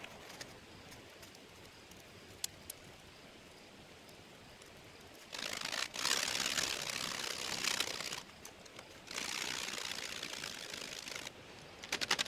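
Dry cedar leaves burning as kindling under charcoal in a shichirin grill: a few faint clicks, then two spells of loud crackling hiss about five and nine seconds in, and fast crackling near the end.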